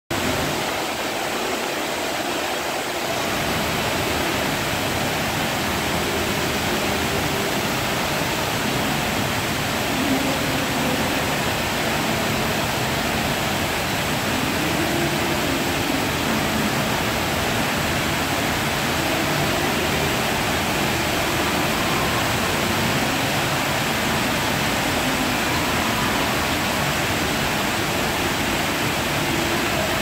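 Ornamental fountain running: water jets falling into the pool with a steady splashing rush.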